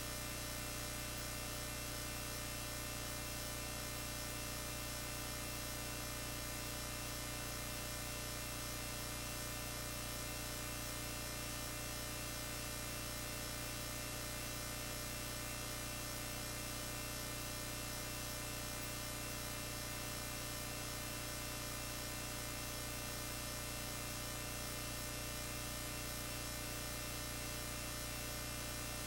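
Steady electrical mains hum with a buzz of many overtones over hiss, unchanging throughout, with no film soundtrack on top.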